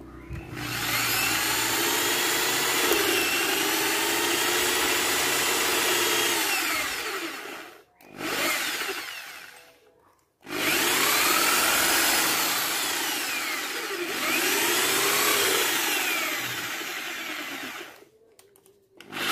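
Stanley electric drill boring into a wooden board with a twist bit, its motor whine rising and falling in pitch as the trigger and the load change. It runs for about seven seconds, gives a short burst, stops, then runs again for about seven more seconds, with another short burst near the end.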